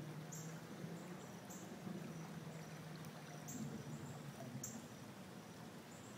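Faint steady rush of muddy floodwater from an overflowing creek running across a yard, with short high chirps every second or so.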